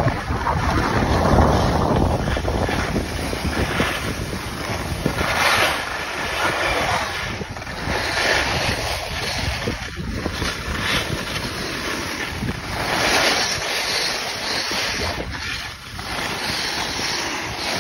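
Wind rushing over the microphone of a skier moving downhill, with the hiss of skis sliding and carving over packed snow, swelling in surges with the turns.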